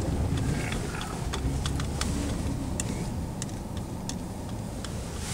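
Car heard from inside the cabin while moving slowly: a steady low rumble of engine and tyres, with scattered sharp clicks.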